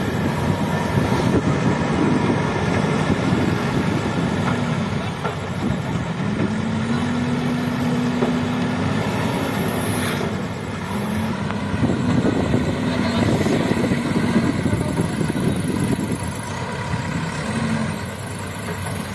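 Diesel engines of JCB backhoe loaders running steadily.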